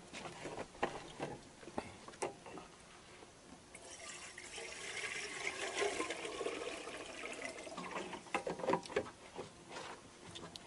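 Fish frying over a wood fire: a sizzling hiss swells for a few seconds in the middle, among scattered crackles and knocks.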